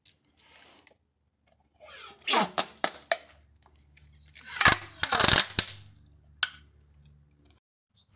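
Kapton tape being pulled off the roll and wrapped tightly around a battery pack: two long noisy pulls, about two seconds in and again about four and a half seconds in, the second the louder, then a single click.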